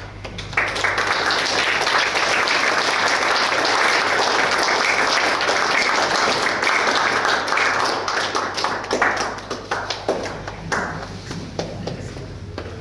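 Audience applauding at the end of a talk: the clapping builds quickly and stays dense for several seconds, then thins to scattered claps and dies away near the end.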